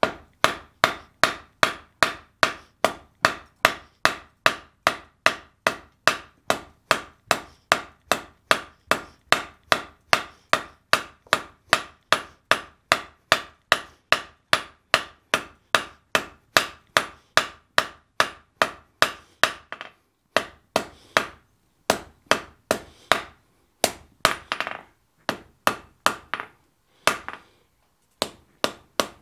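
Hand hammer blows on red-hot wrought iron over a steel anvil, a steady rhythm of about two and a half strikes a second as the hot strap is drawn out into a tab. After a short pause about two-thirds of the way through, the blows come slower and more irregular.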